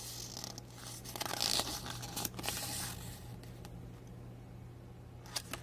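A folded paper flyer being unfolded and handled, rustling and crinkling, busiest in the first three seconds and then quieter, with a few small clicks.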